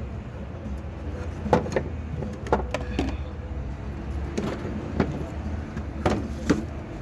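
Sharp clicks and knocks, about eight, irregularly spaced, from hand work in a car's engine bay as a hose clamp is fitted back on. A steady low hum runs underneath.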